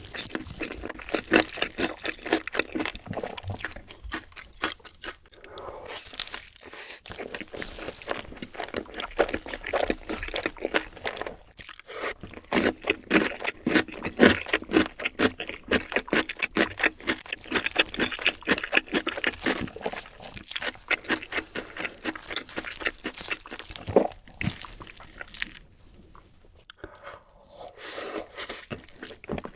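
Close-miked eating of crunchy fried food: rapid, dense crunching and chewing, broken by a couple of short pauses, with a quieter stretch near the end.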